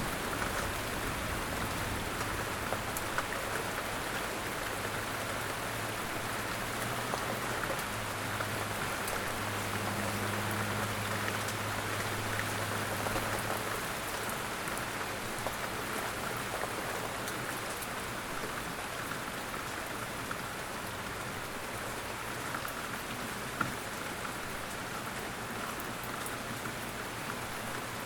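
Steady rain falling, with fine drops pattering on a surface. A low rumble sits under it for about the first half and then fades.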